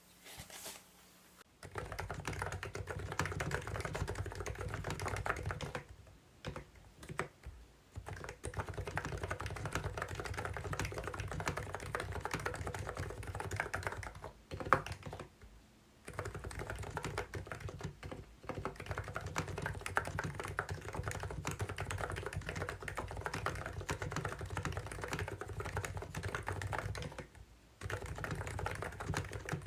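Fast typing on a COX CNK84W electro-capacitive mini keyboard: a dense, even run of keystrokes that stops briefly a few times, with one sharper click about halfway through.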